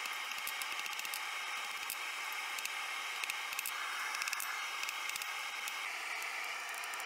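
Light, irregular hammer taps on a hot steel bar resting on an anvil, over the first five seconds or so, above a steady hiss.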